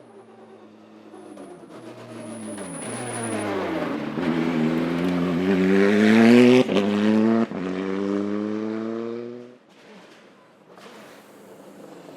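Rally car engine dropping in pitch, then accelerating hard at full throttle, with two quick upshifts about six and seven and a half seconds in, loudest as it passes, before the sound drops away suddenly.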